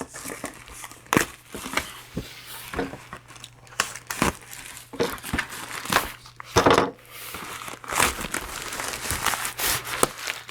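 Packing material being crumpled and torn while a shipping box is unpacked by hand: irregular rustling with sharp crinkling crackles.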